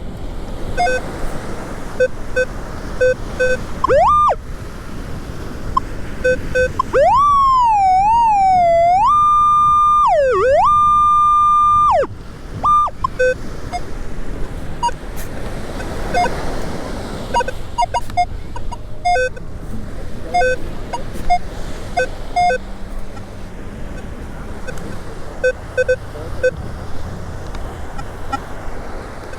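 Metal detector target tones: short beeps at a low and a slightly higher pitch repeating throughout, and from about 7 to 12 seconds a loud continuous tone that wavers in pitch and then holds high, the sign of a strong target close under the coil, here the lead sinker being dug. Steady wind and surf noise behind.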